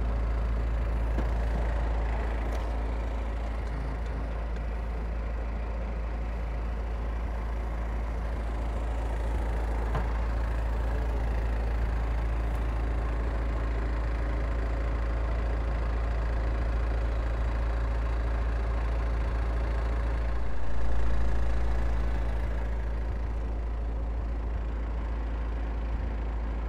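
Farm utility vehicle's engine idling steadily, with a brief swell in engine sound about three-quarters of the way through.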